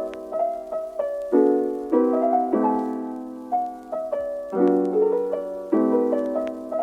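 Background piano music: gentle chords struck about once a second with a slow melody above.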